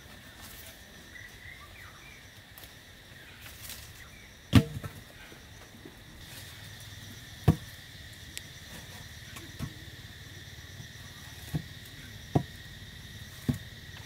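Wooden poles knocking as they are picked up, set down and shifted on a dirt floor: one sharp knock about four and a half seconds in, then several lighter ones. Insects trill steadily in the background.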